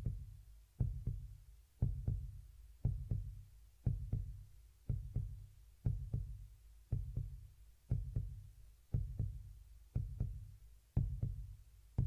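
Deep heartbeat-like thumps, about one a second and each a doubled beat, repeating steadily about a dozen times.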